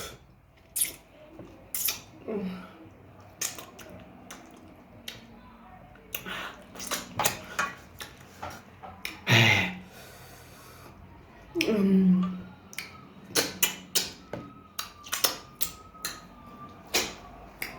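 Close-miked eating sounds: a run of sharp chewing smacks and clicks, broken by three short voiced hums.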